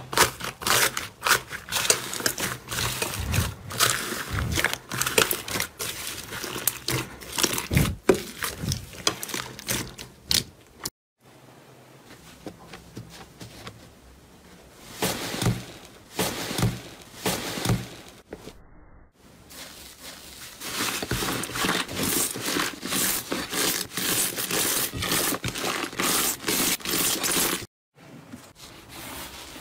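Slime being pressed and squished by hand, giving dense crackling and popping clicks, in a few separate takes broken by two short silences.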